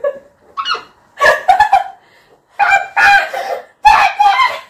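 A young woman laughing hard in about four loud, breathy bursts.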